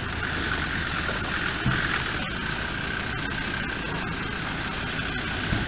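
Land Rover Defender engines idling, a steady rumble, as one Defender creeps forward over gravel; two brief low bumps, about a second and a half in and near the end.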